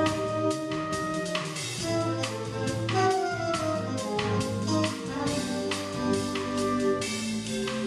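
Live small-group jazz: trumpet and trombone playing a melody line over upright bass and drum kit with steady cymbal strokes.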